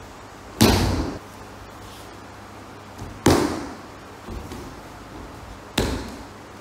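Three sudden thuds on the dojo mats, about two and a half seconds apart, as the aikido partner is taken down in yonkyo and lands on the mat.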